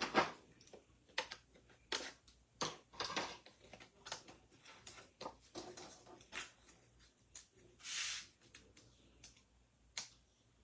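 Light clicks, taps and paper rustles of hands putting foam dimensional adhesives onto the back of a die-cut cardstock panel, with a longer rustle about eight seconds in.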